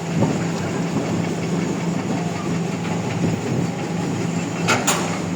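Excavator's diesel engine running with a steady drone, and two sharp knocks close together near the end.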